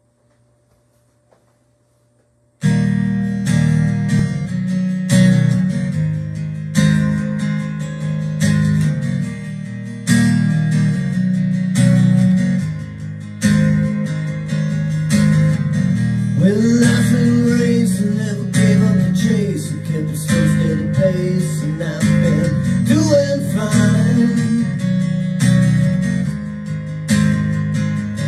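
A recorded song's instrumental intro, starting suddenly about two and a half seconds in after near silence, with a steady beat of even strokes and a gliding melody line over it in the middle.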